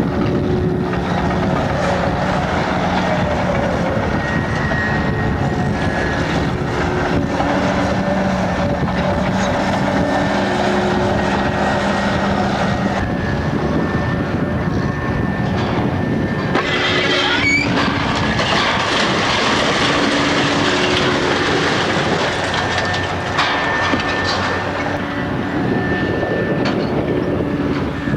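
Heavy demolition machinery running with a steady drone and clanking rumble, and a brief louder rush of noise about seventeen seconds in.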